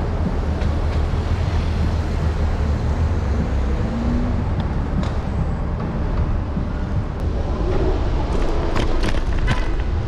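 City street traffic: cars driving through an intersection, a steady low rumble, with a few sharp clicks near the end.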